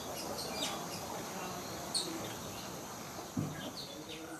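Short, scattered high chirps from a blue-rumped parrot (nuri tanau), with one sharp chirp about two seconds in, over a steady background hiss. A dull knock a little after three seconds.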